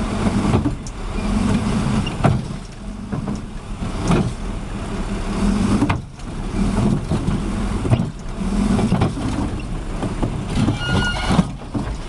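A vehicle engine running, its note rising and falling, with scattered knocks and a brief high tone near the end.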